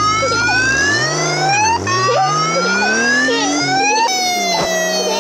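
Cartoon police car siren wailing in slow sweeps: it rises in pitch twice, then starts falling about four seconds in, with a lower tone rising underneath.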